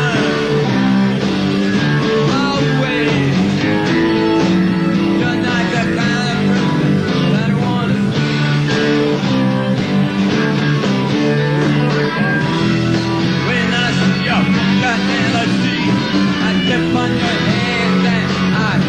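Live rock band playing loud and steady, with electric guitars over bass and drums.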